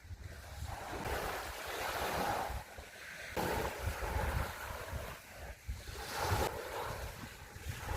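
Sea waves washing onto the beach, the surf swelling and ebbing every second or two, with wind buffeting the microphone.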